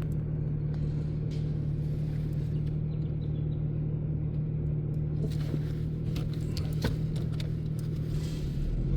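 Car engine idling steadily, a constant low drone, heard from inside the cabin, with a few faint clicks and knocks about five to seven seconds in.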